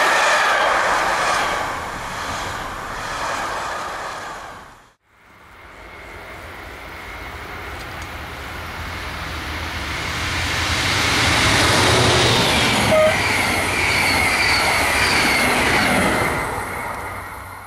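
A train passing by and fading, then after a sudden cut about five seconds in, another train approaching, passing and fading away, its wheels squealing with steady high tones on the rails.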